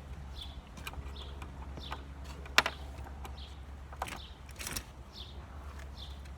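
Hand screwdriver work on a table's screws: a sharp click about two and a half seconds in and a few lighter knocks later, over a short high chirp repeating about every three-quarters of a second and a steady low hum.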